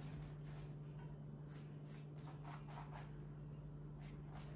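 Silicone pastry brush spreading melted butter over rolled dough: faint, soft swishing strokes, a few a second and irregular.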